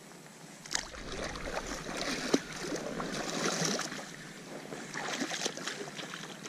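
Water splashing and sloshing close against a float tube, starting about a second in, with a few sharp knocks among the splashes.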